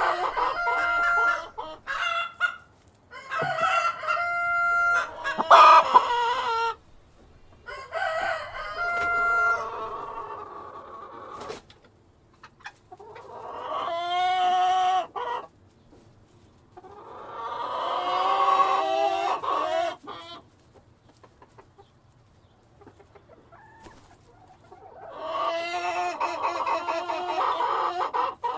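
Hens clucking and calling in short, pitched bursts for the first ten seconds or so, then a rooster crowing three times, each crow two to three seconds long, with quiet gaps between.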